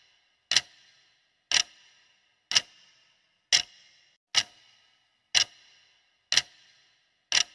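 Countdown-timer sound effect: a clock ticking once a second, eight sharp ticks, each with a brief ring.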